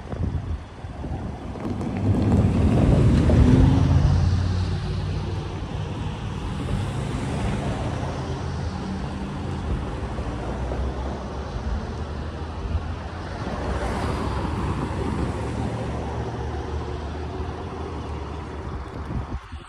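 Amtrak passenger train passing close by: the diesel locomotive's engine is loudest a few seconds in, followed by a steady rumble of the train rolling past, with a second swell of engine sound later on.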